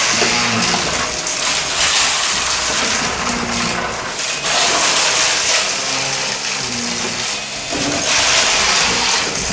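Shark vacuum cleaner running over carpet in quick strokes, its motor tone rising and falling, while it sucks up crunchy debris that rattles and clicks through the head.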